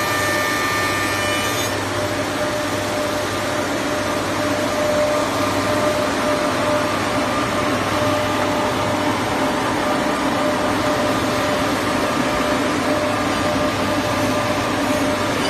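Four-sided wood planer running with its cutterheads planing boards: a steady, loud machine noise with a constant high whine. A few higher tones drop away about a second and a half in.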